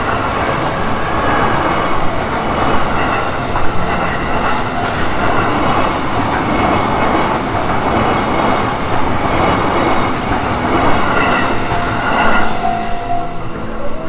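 E233 series electric commuter train passing over a level crossing: a loud, steady rush of wheels on rail with clickety-clack, dying away about twelve seconds in as the last car clears.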